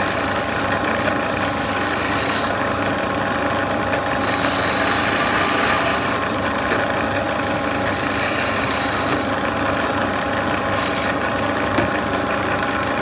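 A CNC machine cutting a wooden sofa leg: a steady motor hum under a continuous cutting hiss, with a few brief sharper, higher passes as the cutter bites harder, about two seconds in, again between four and six seconds, and near nine and eleven seconds.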